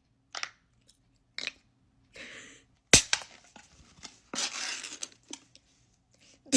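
Vocal sound effects made with the mouth: a string of short clicks and pops and brief hissing, crackly bursts, the sharpest pop about three seconds in.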